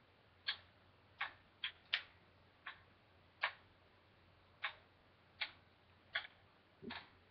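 Wooden kendama ball knocking against the wooden ken as it is caught and tossed: about ten short, sharp clacks at an uneven pace, the last one near the end slightly drawn out.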